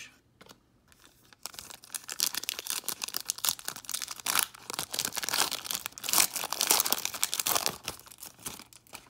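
Trading card pack wrapper being torn open and crinkled: a long run of dense crackling and small snaps that begins about a second and a half in and stops just before the end.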